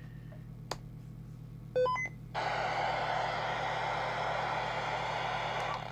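TTI TCB555 CB radio powering up: a click, then about two seconds in a quick run of short beeps stepping up in pitch. These are followed by a steady hiss of receiver noise from its speaker, which drops with a click near the end.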